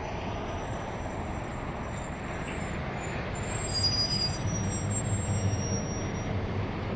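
Street traffic with a heavy vehicle's engine growing louder about halfway through, and faint high whistling tones over it.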